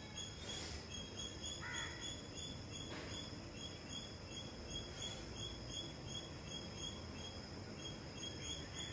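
Outdoor ambience: insects chirring steadily in a pulsing high-pitched trill, with a short bird call about two seconds in, over a low background hum.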